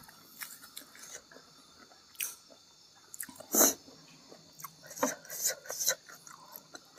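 Close-miked mouth sounds from someone eating: scattered smacks and chewing clicks, with one louder sharp smack about halfway through.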